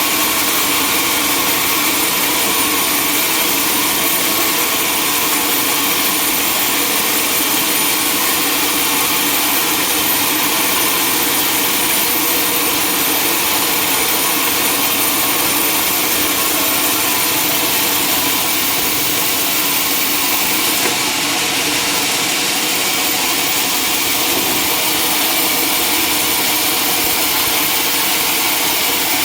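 Sawmill machinery running steadily at a constant loud level, with no break or change.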